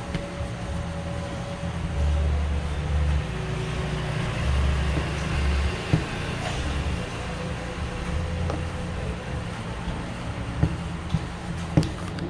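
Steady low background rumble, with a few sharp light knocks from a wooden rolling pin as dough is rolled out on a wooden counter, about six seconds in and a few more near the end.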